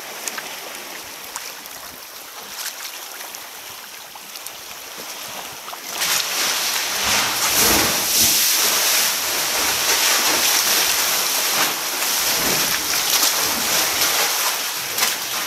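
Sea water washing and sloshing around a kayak and against rock. About six seconds in, as the kayak enters a narrow rock gully, it turns suddenly much louder into a steady hissing wash of surging water.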